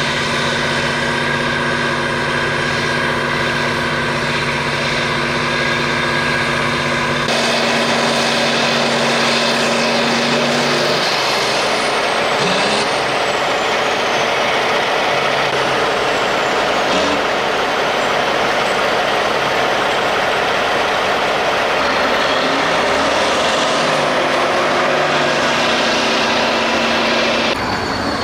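Heavy truck engines and a rotary snowblower running steadily while the blower loads snow into a dump truck. A steady engine hum gives way suddenly about seven seconds in to a louder rushing noise, which lasts to the end.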